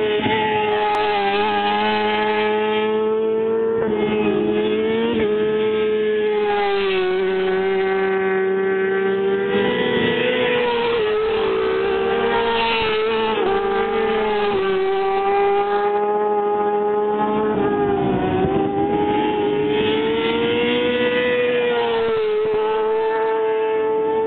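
Racing motorcycle engines running at high revs around the circuit: a continuous drone whose pitch rises and falls slowly over several seconds as the bikes accelerate and slow.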